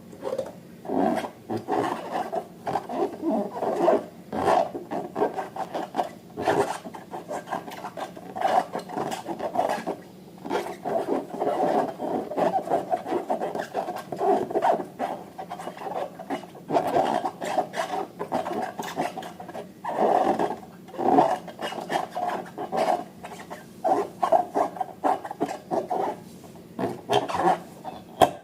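Hands working slime and rubber balloons: continual irregular rubbing, squelching and crackling.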